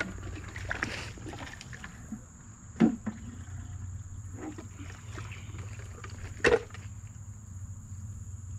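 Hands splashing and sloshing in shallow creek water at a plastic bucket, with two sharp, louder splashes or knocks, about three seconds in and again near six and a half seconds.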